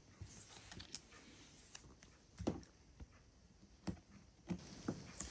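Faint handling sounds of paper and double-sided tape on a tabletop: a handful of soft, irregular taps and light rustles as paper pieces are pressed and stuck down.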